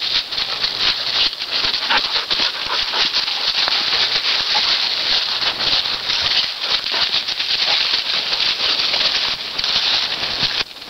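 Dry fallen leaves rustling and crunching underfoot in a dense, continuous crackle, dropping away briefly near the end.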